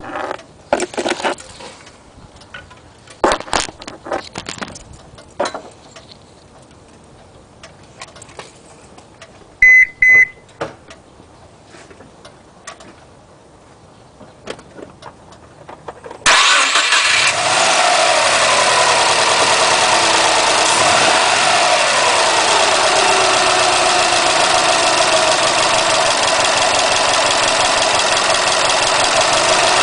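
Scattered clicks and knocks and two short beeps, then about halfway through a 2008 Subaru WRX's turbocharged flat-four starts and runs, its revs falling back from the start-up flare toward idle.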